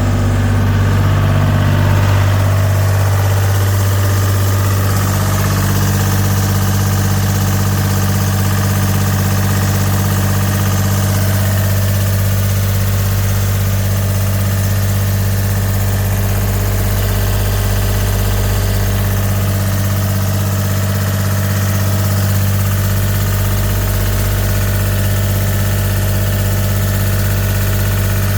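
Gehl 4640 skid steer's Deutz diesel engine running steadily at idle, with a slight change in its note in the first few seconds.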